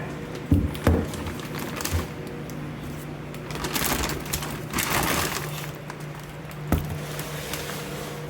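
Plastic bag rustling and crinkling as boxed tail lights are handled, with a few knocks of the parts and packaging against each other over a faint steady hum.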